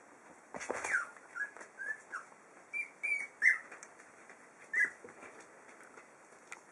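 Five-week-old puppies squeaking and whimpering: about eight short, high-pitched cries, some sliding up or down in pitch, the loudest a little past the middle. A brief rustle and a few light knocks come just before the first cry.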